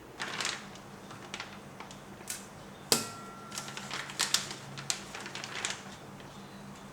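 Kitchen clatter: a string of light clicks and knocks from utensils and cookware being handled, with one sharp clink about three seconds in that rings on briefly.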